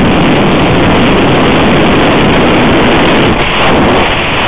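Loud, steady rush of wind and propeller noise on a microphone riding on an ST Models MX-2 foam RC plane in flight.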